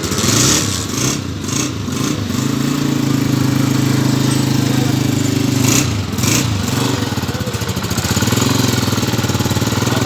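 Honda CG125's air-cooled single-cylinder four-stroke engine running at a steady idle, its note wavering briefly about a second in and again about six seconds in.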